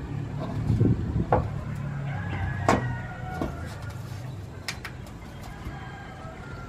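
A steady low motor hum, with a few sharp clicks and knocks over it, the loudest about two and a half seconds in.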